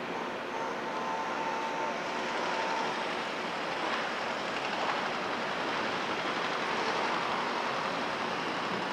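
Steady, even noise of heavy machinery and traffic heard at a distance across a demolition site, with no distinct engine note or impacts. It grows a little louder after the first second.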